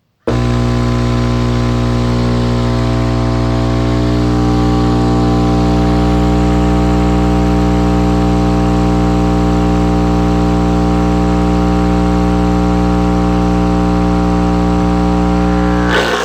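Crossfire XS V4 15-inch subwoofer with a single voice coil connected straight to wall-socket AC mains, giving a loud, steady, distorted hum with many overtones. It cuts off suddenly near the end as the voice coil fails.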